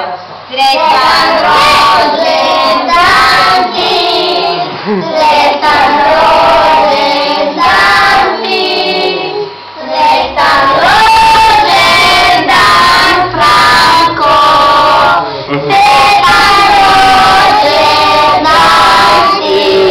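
A group of voices, children among them, singing a song together loudly, with short breaks between phrases.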